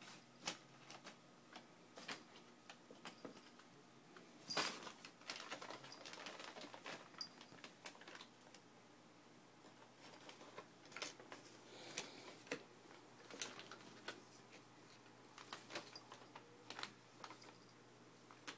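Faint paper rustling and crinkling in short, scattered bursts, with a longer stretch of crinkling about four to seven seconds in: cats playing in loose envelopes and a brown paper bag.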